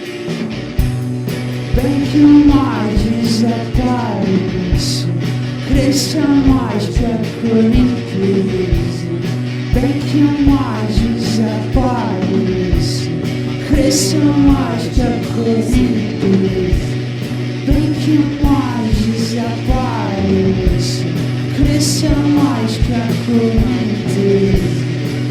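Psychedelic rock band playing live: a regular drum beat, a steady bass note, guitars and sung vocals.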